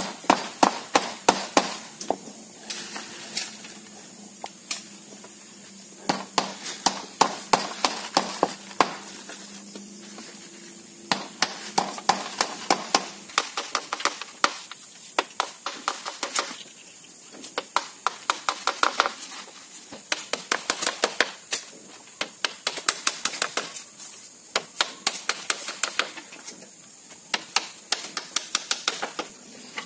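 Claw hammer driving small nails into split-bamboo slats: runs of quick, light taps, one run per nail, with short pauses in between.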